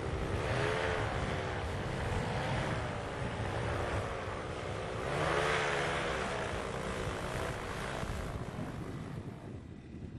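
Paramotor engine and propeller running, the engine note wavering up and down in pitch. It swells twice, most strongly about halfway through, and fades away near the end.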